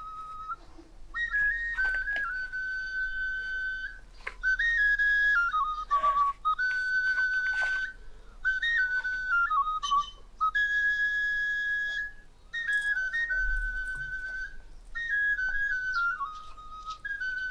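Background music: a high whistle melody played in short phrases of a few notes, stepping up and down with wavering trills and short gaps between phrases.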